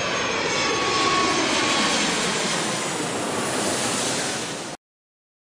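Jet airliner flying past: a steady rush of engine noise with a faint falling whine, cutting off abruptly near the end.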